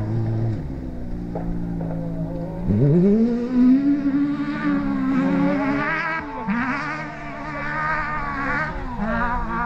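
Off-road rally car's Suzuki Hayabusa engine accelerating hard. The note sags at first, revs up sharply about three seconds in and then holds high, dipping briefly at gear changes around six and nine seconds in.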